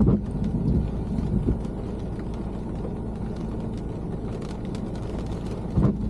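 Steady road and engine rumble inside a moving car's cabin, with light rain ticking on the car. Two sudden thumps stand out, one right at the start and one near the end.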